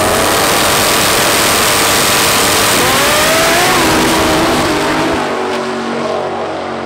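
A 1500 bhp Audi S2 drag car's turbocharged five-cylinder engine at full throttle on a quarter-mile pass, running alongside a second drag car. The revs climb, and the sound fades after about five seconds as the cars pull away down the strip.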